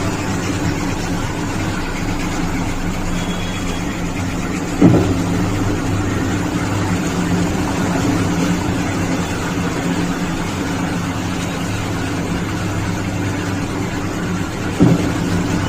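LG top-load washing machine running its spin cycle with a loud, steady hum and rattle, and two sharp knocks, about five seconds in and again near the end, as the drum strikes the cabinet. Heavy drum vibration from loose suspension rods.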